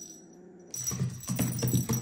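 A kitten growling in low, rough pulses, starting about a second in, while it holds a caught feather wand toy in its mouth: a possessive growl over its prey.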